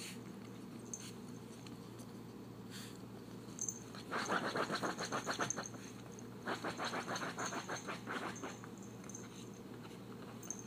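Bullnese (French bulldog–Pekingese mix) puppy panting rapidly in two short bouts of quick, even breaths, over a steady low room hum.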